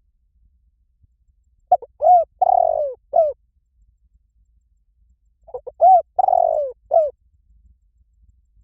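Spotted dove cooing its 'หลิ่วตัน'-style song: two phrases about four seconds apart. Each is a couple of quick short coos, then a longer rolling coo and a short final coo.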